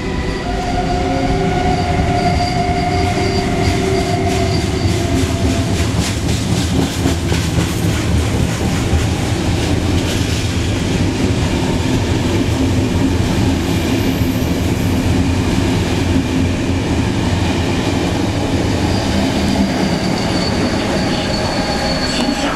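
Re 460 electric locomotive and double-deck passenger coaches passing close by with a loud, steady rumble. Steady whining tones from the locomotive's traction equipment come through over the first few seconds. Then a quick run of wheel clacks over rail joints follows, about a quarter of the way in.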